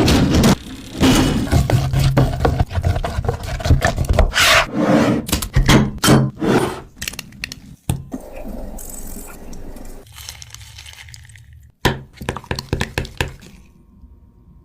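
Scraping and knocking sounds of food preparation on a hard surface, in short clips cut together with abrupt stops.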